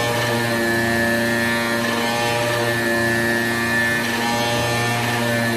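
AOKE flatbed CNC digital cutter running as its cutting head works across a quilted car floor mat: a steady machine hum with a low drone and whining motor tones that shift and come and go every second or so as the head moves.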